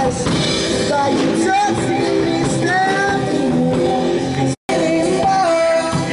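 Street band playing rock music with a singer and electric guitar. The sound cuts out for an instant about two-thirds through.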